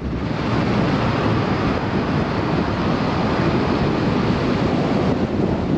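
Heavy wind rushing over an outside-mounted camera on a moving pickup truck, a steady roar with road noise underneath.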